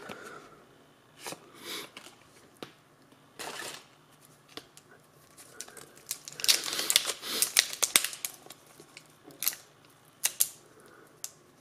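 Foil Pokémon booster pack wrapper crinkling as it is handled, with a dense stretch of crinkling partway through, then short crackles as the pack's top seam is peeled and torn open.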